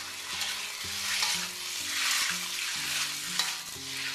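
Cornstarch-coated chicken thigh cubes sizzling in hot oil in a wok while being stir-fried to brown, the sizzle swelling and easing in waves as the pieces are moved.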